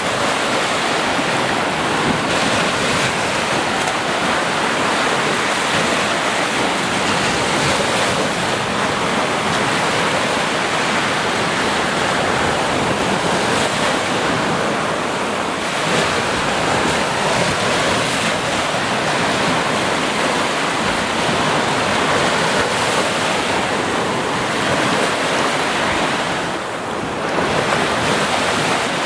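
Sea waves breaking and washing on a beach in a steady, continuous rush, with wind on the microphone, easing briefly near the end.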